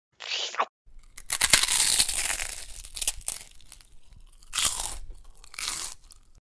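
Rough crunching, crackling noise with many sharp clicks, loudest about a second and a half in, with two more swells near the end. A short separate sound comes just before it at the very start.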